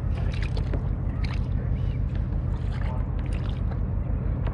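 Steady low rumble of wind on the microphone over water sloshing around a fishing kayak, with scattered small clicks and knocks.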